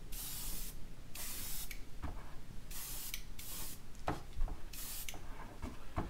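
Iwata HP-C airbrush spraying paint in short hissing bursts, about five in a few seconds, with a few light knocks in between.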